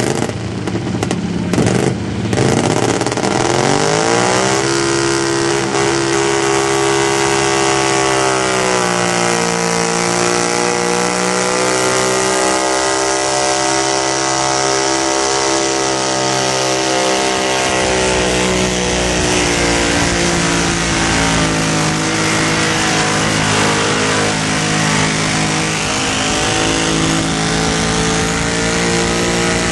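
Twin-cylinder engine of an altered-class pulling garden tractor revving up over the first few seconds, then running flat out under load through a pull. Its pitch sags slightly about nine seconds in. In the second half a low rumble is added and the pitch wavers.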